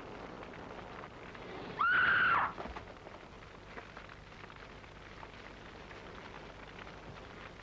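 A single short, high-pitched cry about two seconds in, rising then falling in pitch, over the steady hiss of an old film soundtrack.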